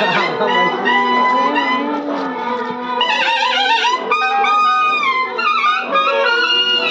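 Loud band music: several wind instruments play a wavering, bending melody over steady held low notes.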